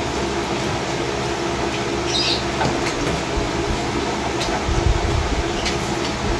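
Steady rushing noise with a faint low hum, and a few light clicks and taps from eating at the table.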